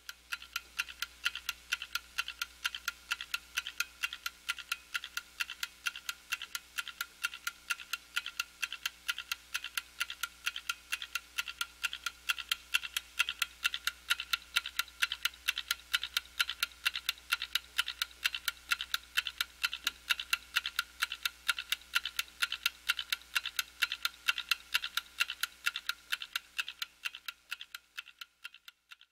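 Small clock ticking at a fast, even pace of several sharp, high ticks a second. The ticks grow fainter over the last couple of seconds.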